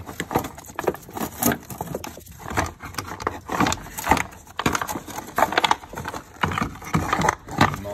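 Irregular clunks, clicks and scrapes of hard parts being handled: the plastic battery tray being unclipped from its cables and lifted out of the engine bay.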